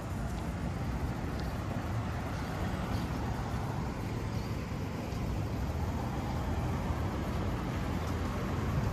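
Street traffic noise: a steady, rumbling hum of cars and motorbikes on a city road.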